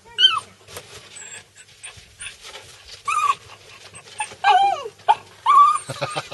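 Dog whining in a string of short, high calls that each fall in pitch, while hunting a rat hidden in a woodpile, with a few scattered clicks.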